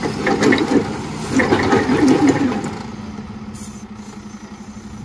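Diesel engine of a weed-overgrown semi-truck tractor unit starting up after sitting unused: rough, uneven firing for about two and a half seconds, then settling into a steady, pulsing idle.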